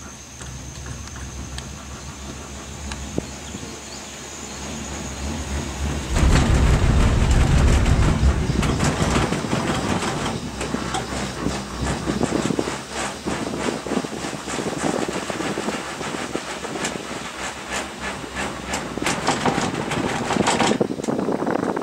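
Gondola cabin on the Genting Highlands cable car passing a support tower. A steady low hum gives way about six seconds in to a sudden loud rumble and rapid clatter as the cabin runs over the tower's sheave wheels. Lighter clicking and rattling from the cabin follows and cuts off shortly before the end.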